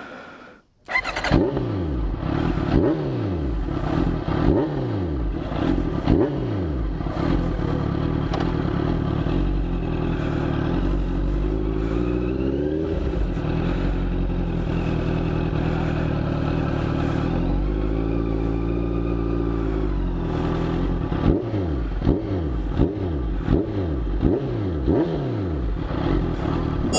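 Honda CBR650F inline-four with an MGP full-system exhaust, loud and revving. It is blipped again and again, the revs dropping quickly after each blip, then pulls with pitch that rises and falls. Near the end come more rapid blips.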